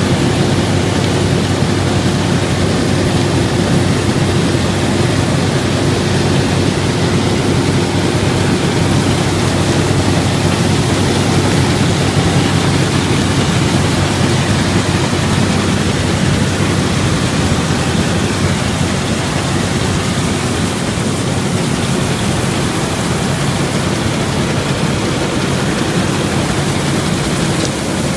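Massey Harris 726 combine harvester running while threshing: a loud, steady mechanical din of its engine and threshing works, with a constant low hum under it.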